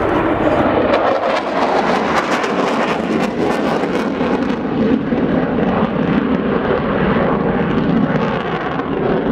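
RAF Tornado GR4 jet engines passing overhead with a loud, steady jet roar. A harsh crackle runs through the noise from about one to four and a half seconds in, and the sound eases toward the end.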